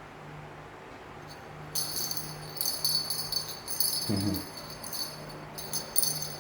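Bell-like metallic jingling, shaken in irregular bursts, starting a little under two seconds in, over a low steady hum. A brief low vocal sound comes about four seconds in.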